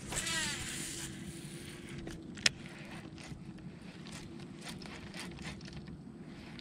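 Baitcasting reel on a cast and retrieve: a brief falling whir as the spool pays out line, then the soft clicking and rattle of the reel being cranked. One sharp click stands out about two and a half seconds in.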